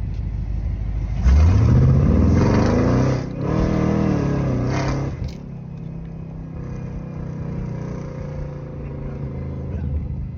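2010 Chevrolet Camaro SS 6.2-litre V8 through a Borla ATAK exhaust, idling, then revved twice: a sharp rev about a second in, held for about two seconds, and a second, shorter rev that falls back to idle.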